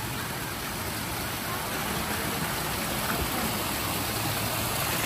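Steady rush of falling water from a lazy river's waterfalls, growing gradually louder toward the end.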